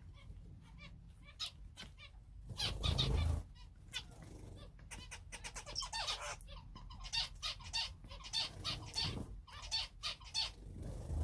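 Small cage birds (finches and canaries) chirping and calling over and over in short, high notes, with a louder burst of noise about three seconds in.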